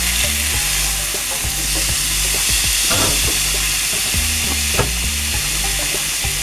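Seasoned chicken breast halves sizzling steadily on a searing hot grill, just turned, with a couple of light clicks.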